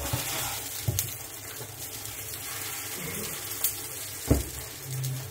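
Frankfurter omelette sizzling in oil in a frying pan: a steady hiss, with a few light knocks along the way.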